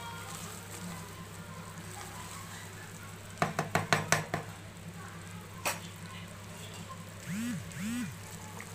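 Wooden spatula stirring and scraping thick, frothy Mysore pak mixture (besan cooked in ghee and sugar syrup) in a pan. About three and a half seconds in comes a quick run of knocks of the spatula against the pan, and one more knock a couple of seconds later. The mixture is at the done stage, pulling away from the sides of the pan.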